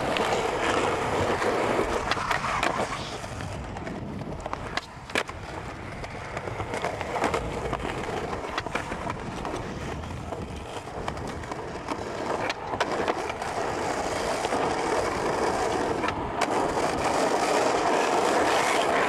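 Skateboard wheels rolling over concrete pavement as the rider pushes along, a steady rolling rumble broken by a few sharp clicks; it grows louder near the end.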